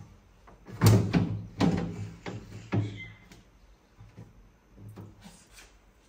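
Clear plastic fridge tray knocking and clattering against the fridge's inner shelf rails as it is fitted into place. Three sharp knocks come in the first three seconds, the first about a second in being the loudest, followed by lighter clicks.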